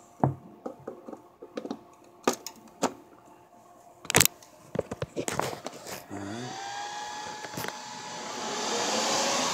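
Clicks and knocks of a power cord being plugged into a Xeon tower server, with a sharp click about four seconds in. About six seconds in, the server's cooling fans start and spin up into a whirring that rises and grows louder: the full-speed fan run of a server at first power-on.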